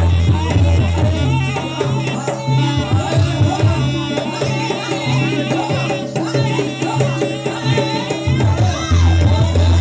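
Loud amplified jaranan music: a percussion-led ensemble with drums, melody and heavy bass. The deepest bass notes drop out about a second and a half in and come back near the end.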